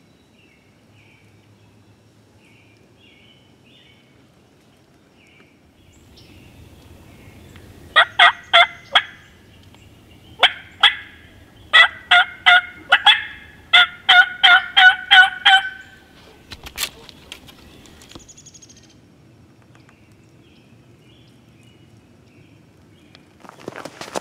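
Wild turkey yelping: four quick runs of short, sharp yelps, each run a string of evenly spaced notes, heard in the middle of the stretch. Faint small-bird chirps come before them.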